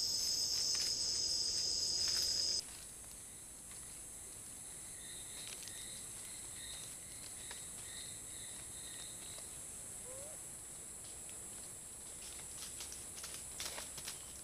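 Forest insects: a loud, high, steady insect chorus that cuts off abruptly about two and a half seconds in, followed by a quieter high insect whine with a faint repeated chirping in the middle. A few light crackles, as of movement in leaf litter, come near the end.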